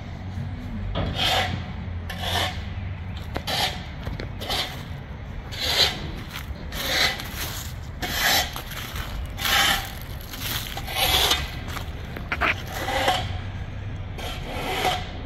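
Rake scraping through loose red clay soil in repeated strokes, about one a second, levelling the backfilled trench.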